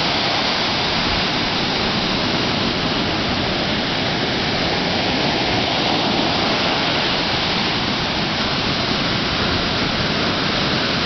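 Ocean surf breaking and washing up the sand and back out, a steady rush of water.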